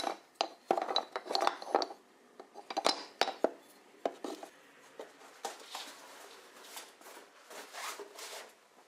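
Wooden spokes clattering and knocking against each other as they are handled in a cardboard box, with a quick run of sharp knocks in the first few seconds, then softer, scattered knocks and rustling.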